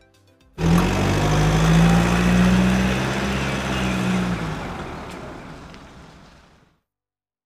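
A motor-vehicle engine sound effect. It cuts in suddenly about half a second in, runs steadily with a low hum that rises slightly in pitch, then fades away over the last few seconds.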